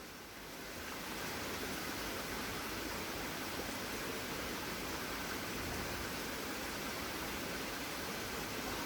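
Steady, even rushing noise with no distinct events, fading in over the first second.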